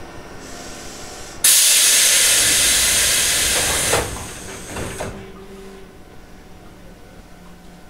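Tobu 8000-series train's pneumatic doors closing at a station stop: a loud hiss of compressed air starts suddenly about a second and a half in and lasts about two and a half seconds, then fades as the sliding doors thud shut twice.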